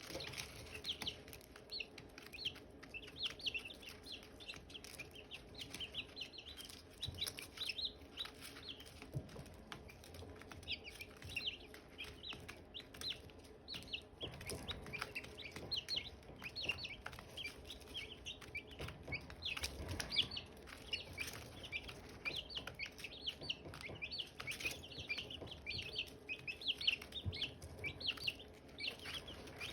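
A group of Silkie chicks peeping without pause, many short high chirps overlapping one another. A few soft low bumps come through, the clearest about twenty seconds in.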